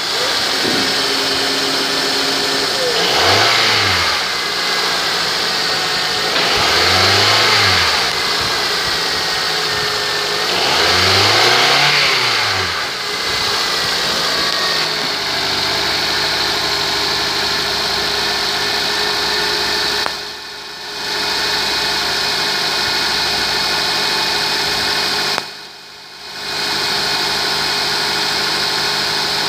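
2003 Honda Accord's 2.4-litre i-VTEC four-cylinder engine revved three times, each rev rising and falling back, then idling steadily. Twice near the end the sound cuts out briefly.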